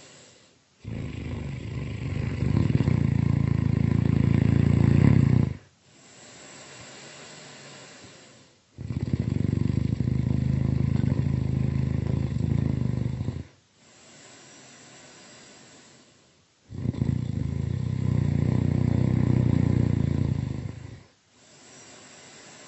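Really loud snoring: three long, low snores of four to five seconds each, about eight seconds apart, with a quieter breath out between them.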